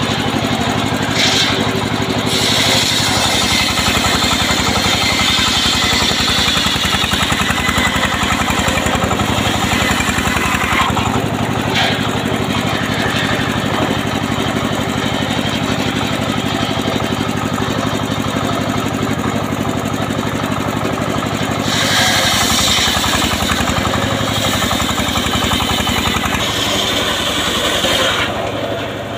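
Homemade engine-driven circular table saw ripping a teak log lengthwise, the engine running steadily under the cut. The blade's harsh cutting noise grows louder for several seconds near the start and again near the end.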